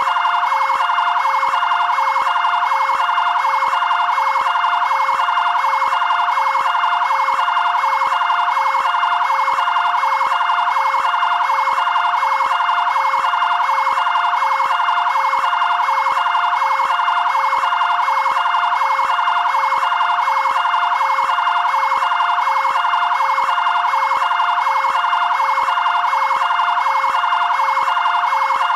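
Fire brigade area-command vehicle siren sounding continuously, switching back and forth between two pitches in a quick, even two-tone pattern.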